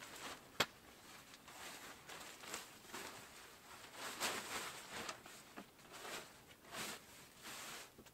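Irregular rustling and swishing of a ground sheet and sitting pad being handled and spread out, with one sharp click about half a second in.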